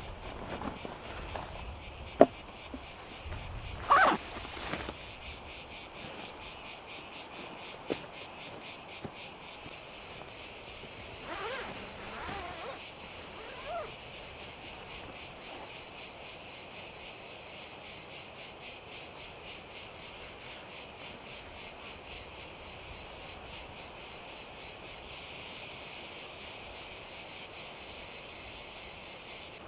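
Insects buzzing in a loud, steady, high chorus that pulses about twice a second. There is a sharp click about two seconds in and rustling of hammock fabric and netting being handled.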